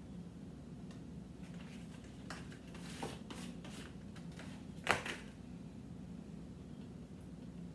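Shredded cheese being scraped off a plate and scattered over a pizza by hand: faint rustling and a few light taps, then a sharp clack about five seconds in as the plate is set down on the table. A low steady hum runs underneath.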